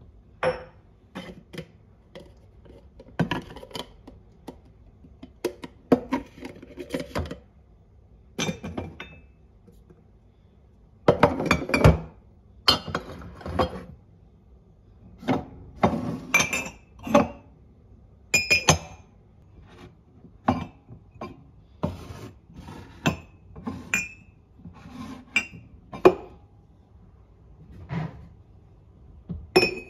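Ceramic mugs, glass jars and a pot being set down and shifted on a wooden cupboard shelf: an irregular string of clinks and knocks, some with a short ring, busiest about halfway through.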